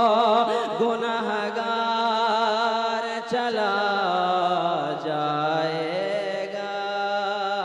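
A man singing a naat through a microphone and PA system, holding long melismatic notes with heavy vibrato.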